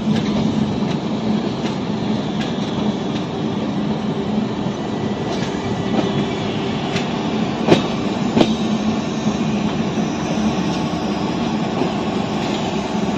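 Passenger train coach running along the track: a steady rumble of wheels on rails. About eight seconds in there are two sharp knocks less than a second apart.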